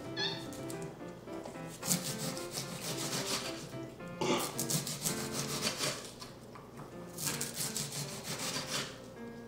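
Kitchen knife slicing through an onion onto a wooden cutting board, in three spells of quick strokes, over background music.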